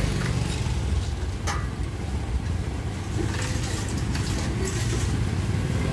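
Small step-through motorbike engine running at low revs close by as it creeps forward, with a brief click about one and a half seconds in.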